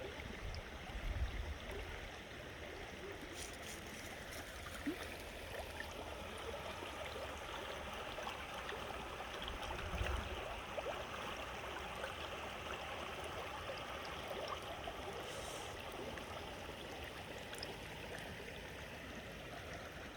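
A rain-swollen creek flowing, a steady rush of water. Brief low rumbles come about a second in and again about ten seconds in.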